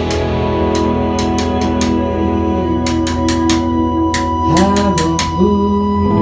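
Live band music: hollow-body electric guitar with held chords over a drum kit with frequent cymbal and drum hits, and a sung line rising and falling about two-thirds of the way in.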